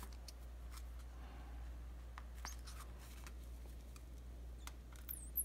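Faint, scattered small clicks and taps as a steel lancet and fingers work at a laundry detergent pod's plastic film, the sharpest click near the end, over a low steady hum.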